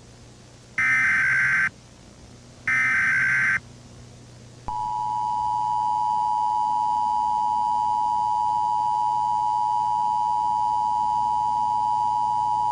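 Emergency Alert System tones: two short bursts of the digital SAME header, each about a second long, then about four and a half seconds in the steady two-tone EAS attention signal begins and holds.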